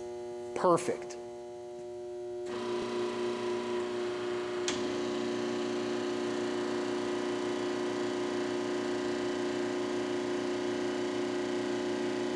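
Radial arm drill press (1978 OOYA RE2-1300A) humming steadily, then a louder motor starts up about two and a half seconds in and keeps running evenly. A single click comes a couple of seconds after the motor starts.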